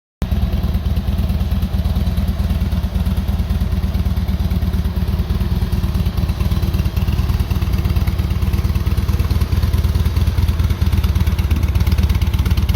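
Harley-Davidson Street Bob's V-twin engine running steadily, with a deep, rapidly pulsing exhaust note.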